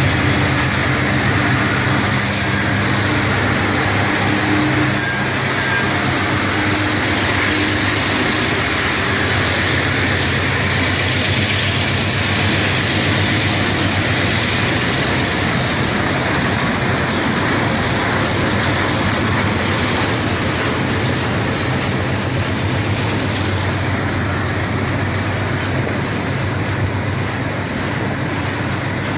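Passing freight train: three GE diesel-electric locomotives (C30-8M, C30-M3 and C39-8) run by close up, their engines a steady low drone, followed by a long string of container flatcars rolling past with their wheels running on the rails. The sound stays loud and steady throughout, easing slightly near the end.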